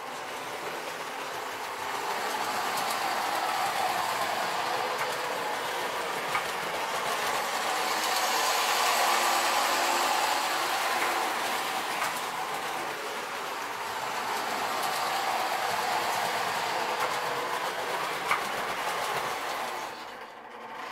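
Lionel postwar 209 New Haven Alco FA diesel running on three-rail O-gauge track: a steady, nice and quiet whirr of its motor and gears with a few clicks of wheels over the rails, swelling and fading as it circles the loop and dropping away near the end. The quiet running is the sign of a motor restored to good order.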